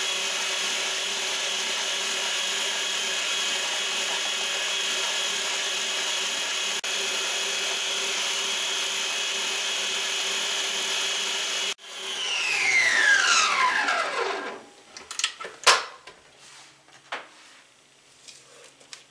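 Kenmore Elite Ovation stand mixer motor running steadily while creaming butter and sugar. About twelve seconds in, after an abrupt break, the motor winds down with a falling whine as the mixer is stopped. A few sharp knocks and clicks follow as the mixer head is tilted up and the bowl is scraped.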